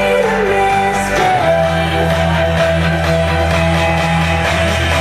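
Background rock music with guitar over steady low bass notes.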